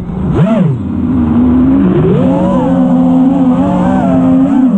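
FPV quadcopter's Ethix Stout V3 brushless motors and propellers whining under changing throttle, heard from the onboard camera. The pitch swoops up and back down about half a second in, climbs around two seconds in and holds, then falls near the end.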